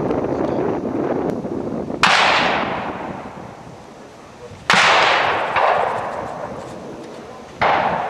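Three gunshots at a shooting range, about three seconds apart, each sharp report followed by a long fading echo.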